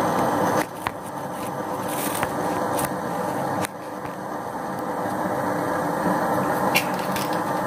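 Steady rushing noise at a freshly lit gas stove burning under a soup pot, with a few light clicks and knocks.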